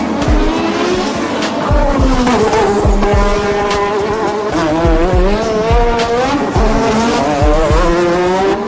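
Turbocharged Honda V6 of the 1987 Lotus 99T Formula One car running hard through slow corners, its pitch rising and falling repeatedly as it brakes, shifts and accelerates, with repeated low thumps.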